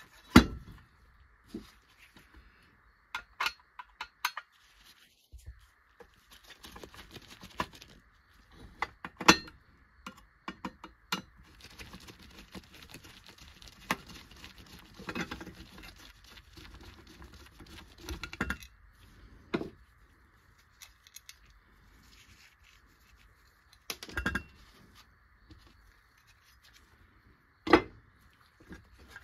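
Die-cast metal toy tractor parts clinking and knocking as they are handled, with a screwdriver scraping and prying at the fender piece. The sharp knocks come irregularly, with a stretch of scraping in the middle.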